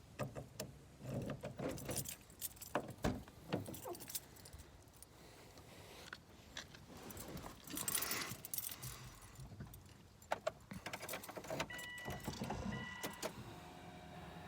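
Car keys jangling and clicking as they are handled in a Subaru Impreza WRX STI S202 before starting, with two short electronic beeps near the end, followed by a faint steady hum.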